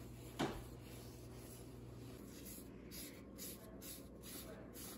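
Paper towel rubbing oil onto a wooden spoon: soft, scratchy wiping strokes, several in a row in the second half. A single light knock about half a second in.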